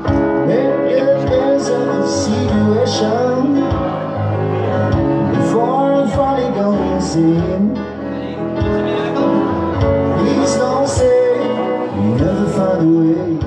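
Live amplified band music: a guitar, a keyboard and a harmonica playing together, the harmonica line bending in pitch over a steady beat.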